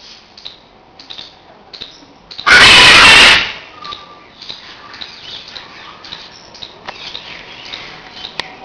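Blue-and-gold macaw giving one very loud, harsh squawk of a little under a second, about two and a half seconds in, among softer short chirps and clicks.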